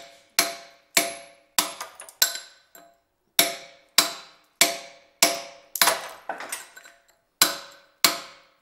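Hammer striking a metal carving chisel on basalt, in a steady rhythm of about one and a half blows a second with two short pauses. Each blow rings briefly with a metallic tone.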